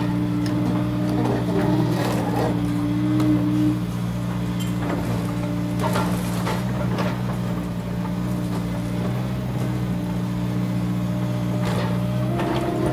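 Komatsu PC200 excavator's diesel engine running steadily under load as the machine digs and lifts a bucket of soil. A higher tone in the engine note drops away about four seconds in, and there are a few short knocks.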